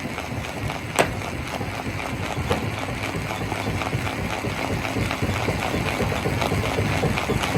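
Rock crusher running with a steady rumble and a constant clatter of stones, with one sharp crack of rock about a second in.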